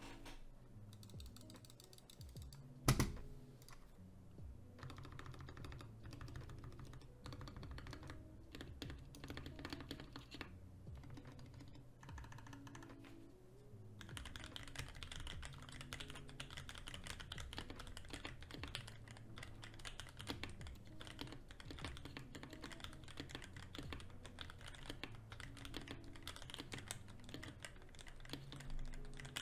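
Typing on a 3D-printed Tofu60 mechanical keyboard: a continuous patter of keystrokes, with one louder knock about three seconds in. From about halfway the typing gets denser and brighter.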